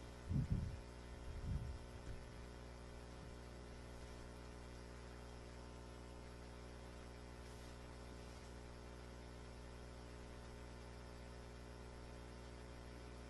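Steady electrical mains hum with a row of evenly spaced overtones, faint and unchanging. A couple of soft low thumps come about half a second and a second and a half in.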